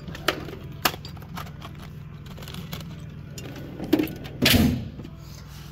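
Steel tool chest drawers being shut and pulled open, with loose metal tools clinking and rattling inside. There are a few sharp clicks early on, and a louder drawer slide with knocks about four and a half seconds in.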